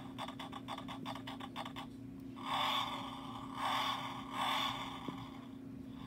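Check Tires sound effect from a Disney Pixar Cars play-a-sound book's steering-wheel panel, played through its small speaker: a rapid run of clicks, about six a second, for about two seconds, then three short bursts of hissing noise.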